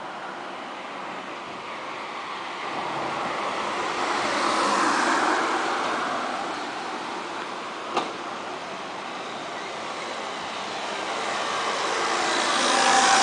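Road traffic: cars passing on a road, their tyre and engine noise swelling and fading. One passes about five seconds in and another approaches near the end, with a single sharp bang about eight seconds in.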